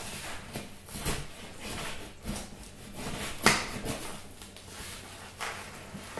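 Kitchen knife slitting packing tape and scraping along the cardboard seams of a shipping box: a run of short scraping, rasping strokes, with one sharper knock about halfway through.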